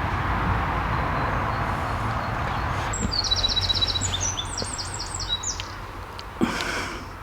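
A small songbird singing a quick run of high chirping notes for about two seconds, starting about three seconds in, over a steady outdoor background noise. A short knock sounds near the end.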